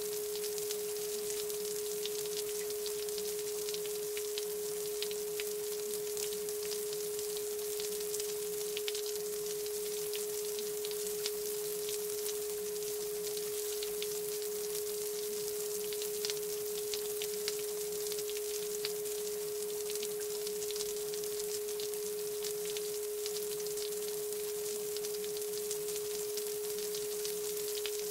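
A steady electronic pure tone held at one pitch without a break, over a soft even hiss with faint crackles: the masking bed of a subliminal track, with the affirmations buried beneath it.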